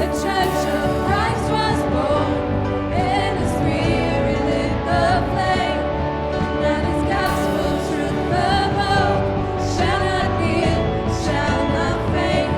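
Live worship band playing a Christian worship song, with sung vocals over steady instruments.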